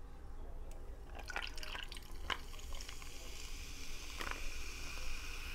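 A carbonated drink poured from a can into a glass: a few light clicks, then a steady fizzing hiss from about three seconds in.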